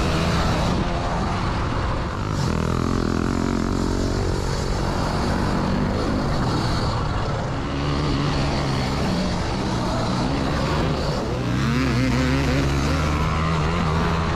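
Off-road motorcycle engines running and revving on a dirt track, rising and falling in pitch as the bikes accelerate and back off.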